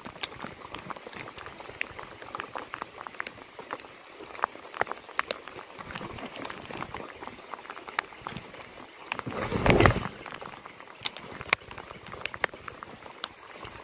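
Rain falling, with scattered drops ticking sharply close to the microphone. About nine seconds in there is a louder rush of noise lasting about a second.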